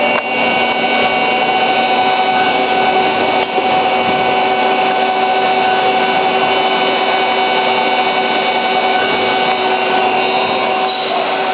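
Johnford SL-500 slant-bed CNC lathe running under power: a steady whine of several held tones over a dense machining noise.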